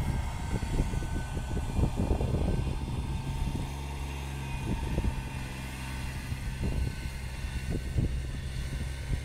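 Compact tractor's engine running steadily as it works sand fill with its box blade, with wind buffeting the microphone.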